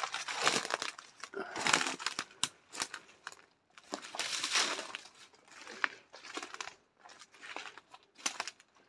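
Footsteps crunching and rustling through dry leaf litter and ferns, with twigs snapping underfoot, in irregular bursts while walking off-track.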